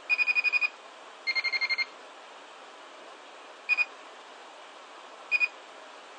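Electronic buzzer beeping: two quick runs of about seven short beeps in the first two seconds, the second run slightly lower in pitch, then a double beep about three and a half seconds in and another about five and a half seconds in, as the signal generator's output frequency is stepped up.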